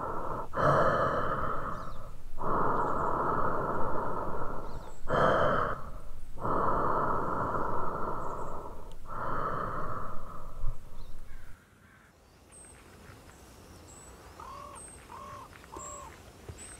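A person's heavy breathing, loud and close, in slow drawn-out breaths: the unseen watcher's breathing in a horror film. It cuts off suddenly about eleven seconds in. Faint bird chirps and a few short calls follow.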